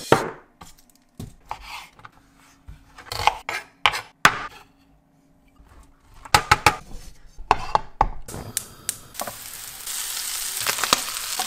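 Cooking sounds in quick succession: a pepper mill grinding, then separate clicks, knocks and scrapes as cheese is grated on a metal box grater. From about nine seconds in, diced bacon and onion sizzle steadily in a frying pan, with clicks of a wooden spatula stirring.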